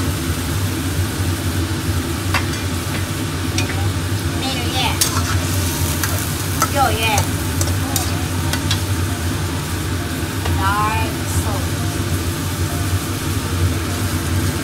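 Tofu cubes sizzling in a wok of oil and sauce while a ladle stirs, with a few clinks of the ladle against the pan and short squeaky scrapes, over a steady low hum.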